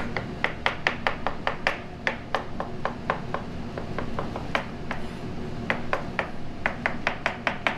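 Chef's knife cutting through mushrooms onto a cutting board: quick runs of sharp knocks, about five a second, with a short pause about two-thirds through.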